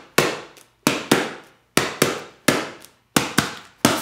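Open hand slapping a small cardboard box played as a drum: about nine sharp hits in a repeating rhythm, each ringing out briefly in the room.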